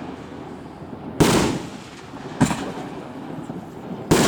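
Fireworks bursting overhead: three sharp bangs about a second or so apart, the first the loudest, each trailing off in a fading rumble.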